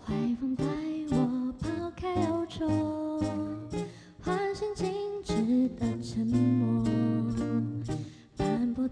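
A woman sings a slow pop ballad into a microphone, accompanied by plucked and strummed acoustic guitars. The sung phrases rise and hold, with short pauses near the middle and near the end.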